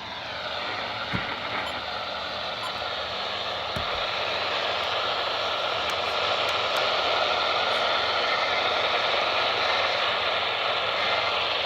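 AM radio static from a receiver tuned to a weak station: a steady hiss, with a faint whistling tone that sinks slightly in pitch and then holds.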